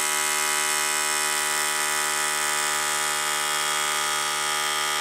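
Soda Can Robug toy's small electric motor spinning an off-centre quarter-circle weight: a steady buzz as the vibration jiggles the can along on its wire legs.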